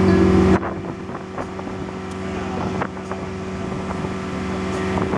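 A boat engine running steadily, with wind buffeting the microphone. The engine hum is loud for the first half second, then drops suddenly to a quieter level, with a few light knocks heard over the wind.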